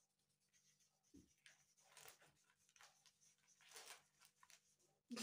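Faint scratching of felt-tip markers writing on paper in short strokes, with a soft thump about a second in and a sheet of paper rustling near the end.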